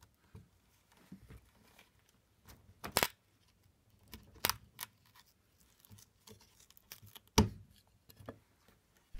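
Split wood at a broken chair-leg joint cracking and splintering as a chisel pries it and hands break the piece away: scattered sharp cracks, with a louder one about seven seconds in.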